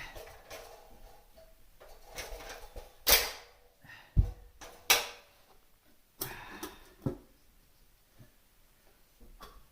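Several sharp knocks and clatters with short bursts of rustling: cooking gear and a cup-ramen container being handled and set down.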